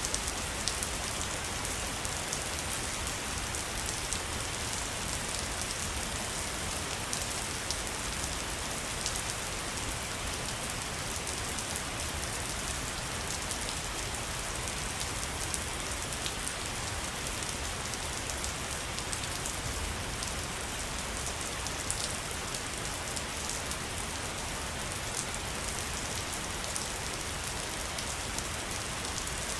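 Waterfall: a steady rush of falling water, an even hiss with small scattered splashes and no change in level.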